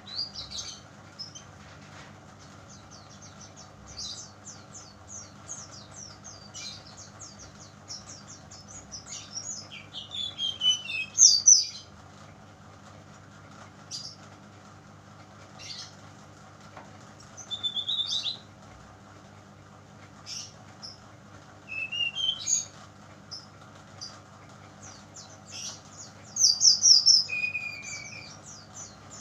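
A juvenile (spotted) brown-chested jungle flycatcher sings: a young, untrained bird learning its song. It gives scattered high chirps and short trills, with louder bursts about ten, eighteen, twenty-two and twenty-seven seconds in, over a steady low hum.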